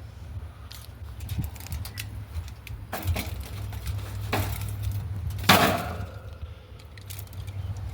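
A run of irregular clattering knocks and clicks from objects being handled, the loudest about five and a half seconds in, over a steady low rumble.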